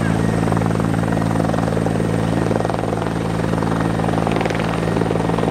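Bell 412EPI helicopter running on the ground ahead of take-off, its twin turboshaft engines and four-blade main rotor turning at speed: a steady turbine hum under a fast, even rotor chop.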